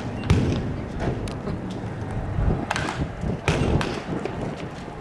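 Batting practice: a baseball bat striking pitched balls, three sharp hits in a few seconds over a steady background hubbub.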